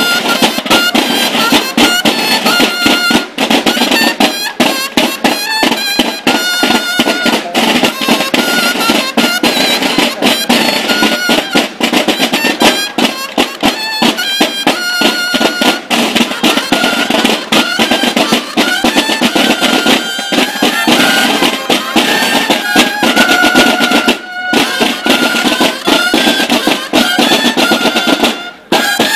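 Loud music with fast, dense drumming and a high melody of held notes over it.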